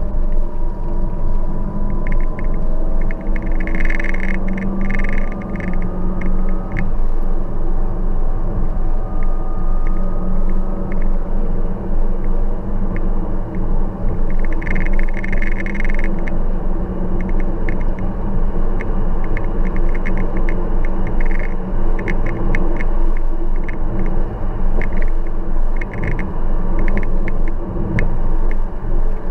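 A car driving along a road: steady engine and road rumble, the engine note rising and falling slowly as the speed changes. A crackly hiss comes in briefly twice.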